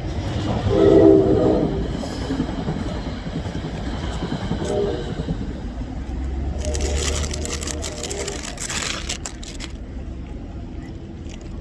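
A horn sounds once, about a second in, for about a second, several tones at once. A few seconds later comes a hissing rush over a low rumble, ending in a run of sharp clicks.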